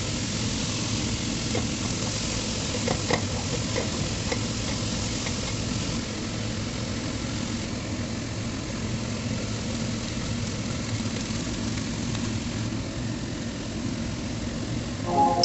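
Food sizzling steadily as it fries in a pan, with a few light clicks of a utensil stirring against the pan about three to five seconds in.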